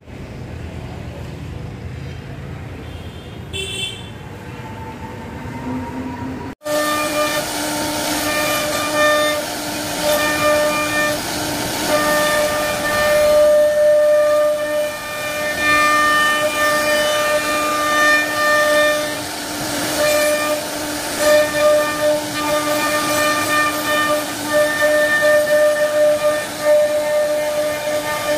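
CNC router spindle carving a wooden panel: a steady whine with overtones that wavers and dips as the bit bites into the wood. A quieter low hum runs for the first few seconds before the louder cutting starts abruptly.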